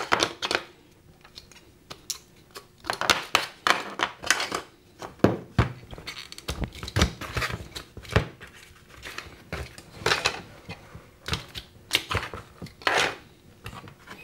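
3D-printed plastic mold frame pieces being pulled off the sides of cured plaster mold blocks and set down: irregular plastic clicks, scrapes and knocks.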